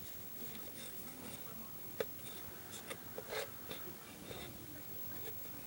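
Faint rustling and a few small clicks of hands tying friendship-bracelet knots, the strings rubbing and tugging against a clipboard; the sharpest click comes about two seconds in.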